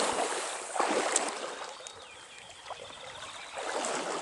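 Shallow stream water splashing and sloshing in a few uneven surges, with quieter running water between.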